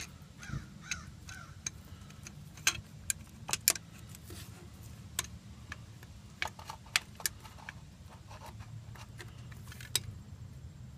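Irregular light metallic clicks and clinks of a magnet tool working at an axle C-clip between the spider gears inside a Ford 8.8 rear differential.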